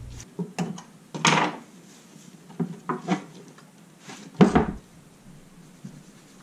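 Objects being handled on a wooden workbench: a series of short knocks, clicks and rustling scrapes as things are picked up and set down, the loudest a little past four seconds in.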